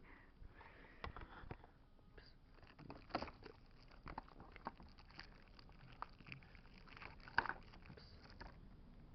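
Faint rustling and scattered light clicks of packaging being handled by hand.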